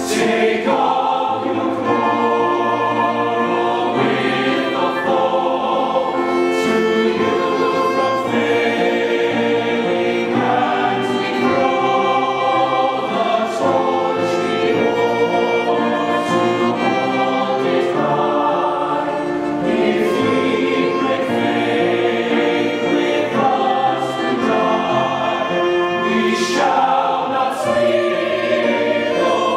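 Mixed choir of male and female voices singing together, a continuous choral piece in several parts.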